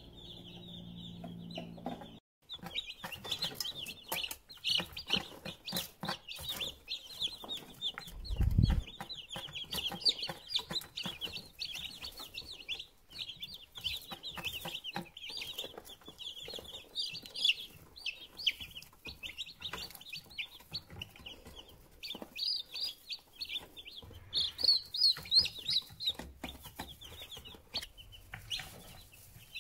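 Broiler meat chicks peeping, a dense, continuous chorus of short high peeps. A low hum sits under the peeping at the start, and a single low thump comes about eight seconds in.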